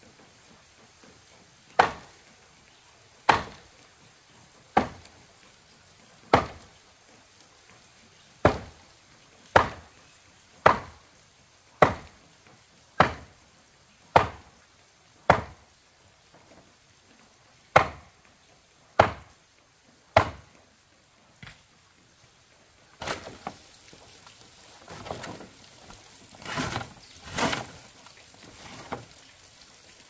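About fifteen sharp wooden knocks, evenly spaced a little over a second apart, from a fence post being hammered in. After a short pause these give way to softer, irregular clattering and rustling.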